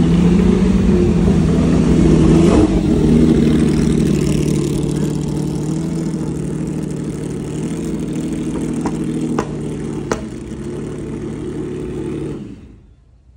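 A car engine running at a steady pitch, loudest in the first few seconds, with two sharp clicks about nine and ten seconds in. The sound cuts off abruptly near the end.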